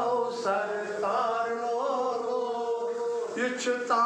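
A man singing a devotional song to Ganesha, drawing out long, melismatic notes that bend in pitch without a break.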